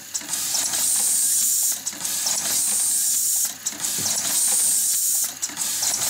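JAM JN10SD fully automatic wire crimping machine running: a loud, steady hiss of compressed air, broken about every two seconds by a short dip with light clicks as the machine cycles.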